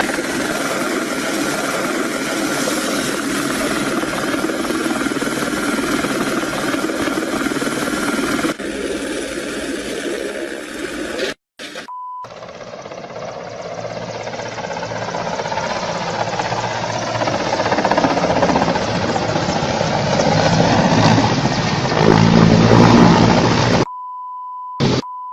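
Helicopter engine and rotor noise mixed with wind rush, changing abruptly where the footage cuts. A short steady beep follows a brief dropout about 12 seconds in, and another steady beep sounds near the end.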